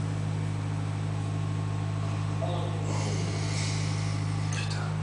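A steady low mechanical hum, with a few faint short sounds about two and a half seconds in and again near the end.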